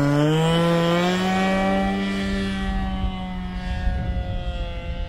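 Radio-controlled model airplane's engine running at high throttle in flight. Its buzzing note rises in pitch over the first second, then holds steady and slowly fades as the plane moves away.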